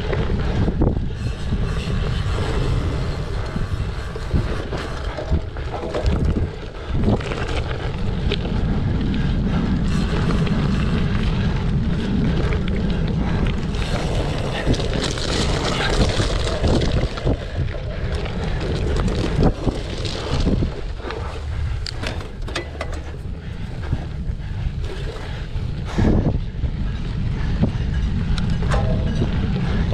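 Wind buffeting the microphone of a camera on a cyclocross bike while it is ridden hard, with frequent knocks and rattles from the bike going over rough ground.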